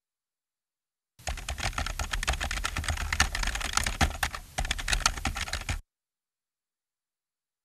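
Rapid, irregular clatter of typing keys that starts about a second in and cuts off suddenly after some four and a half seconds.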